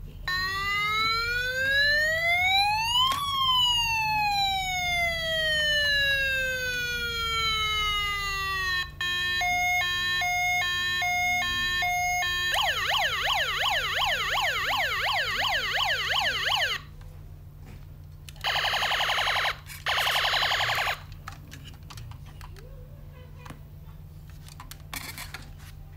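Toy fire truck's electronic siren sound module: a wail that rises for about three seconds and falls slowly, then a stepped two-tone pattern, then a fast warbling yelp. After it stops come two short buzzing blasts.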